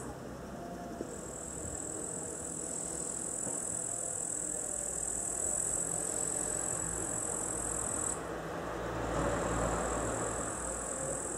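Outdoor garden ambience: a steady high-pitched insect trill that stops abruptly about eight seconds in and resumes a second later, over a low rumble of distant traffic that swells near the end.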